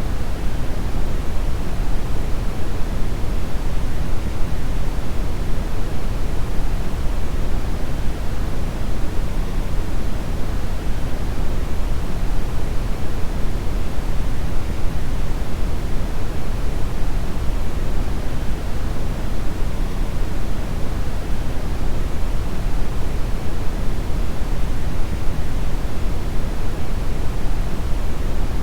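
Brown noise: a steady, unchanging synthetic hiss, loudest in the deep lows and tapering off toward the highs, like a distant low rumble of rushing water.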